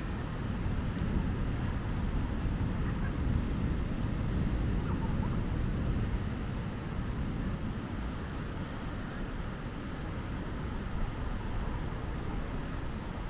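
Steady low rumble of surf and wind on an open beach, with no distinct events.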